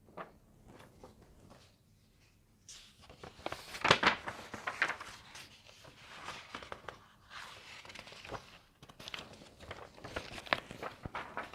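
Irregular rustling and knocking handling noises with scattered sharp clicks, loudest about four seconds in.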